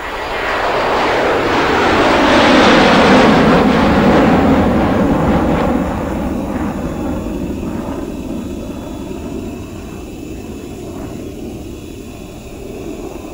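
Toy helicopter rotor spinning close to the microphone, a whirring rush of air that swells over the first few seconds and then slowly fades.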